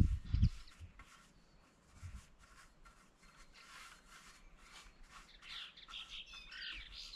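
Small songbirds chirping, more often and more clearly in the second half. A brief low rumble dies away at the very start.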